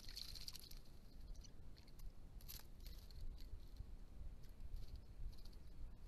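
A small bird bathing in shallow pond water, a flurry of splashing at the start and a few shorter splashes and patters later, over a low background rumble.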